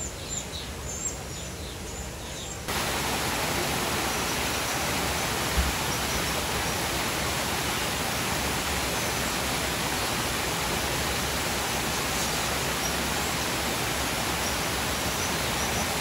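A few bird chirps over a quiet background, then, about three seconds in, the steady rush of a waterfall cuts in suddenly and covers everything, with a few faint bird chirps heard through it.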